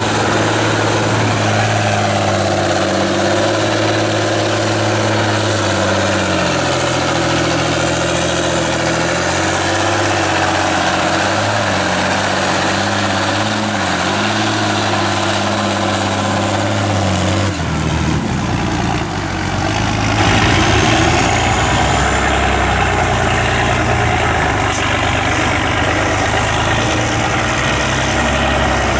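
Engines of off-road trucks running under load in deep mud, the pitch rising and falling as the throttle is worked. About two-thirds of the way through the sound changes abruptly to a different, lower and rougher engine.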